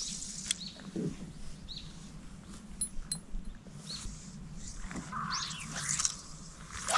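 Wild birds calling: a few whistled notes that sweep up and down in pitch, the loudest near the end.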